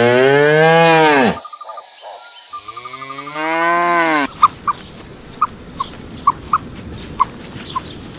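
Cow mooing twice, each moo a long call that rises and then falls in pitch. About four seconds in the sound cuts to a hissy background with short, sharp chirps coming once or twice a second.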